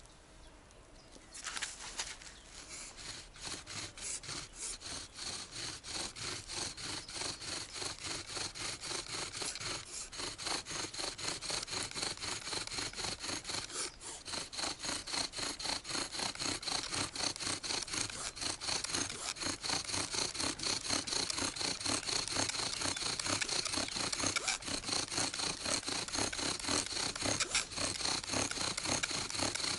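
Bow drill for friction fire: the bow is sawed rapidly back and forth, its cord turning a wooden spindle that grinds in a bark hearth, in an even rhythm of rubbing strokes. It starts about a second and a half in and grows gradually louder.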